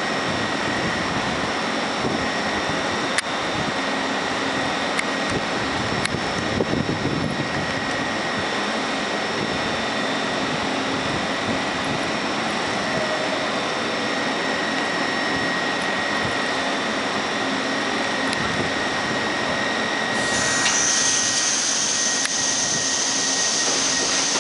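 An R62A subway train of the 7 line stands at an elevated station, its equipment giving a steady whine over a hissing hum, with a few clicks. About 20 seconds in, a louder air hiss starts and continues.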